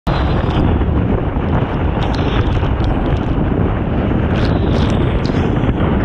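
Strong wind buffeting a board-mounted action camera's microphone as a windsurfer planes across choppy water, a steady heavy rumble throughout. Short hiss-like splashes of spray and chop against the board come through now and then.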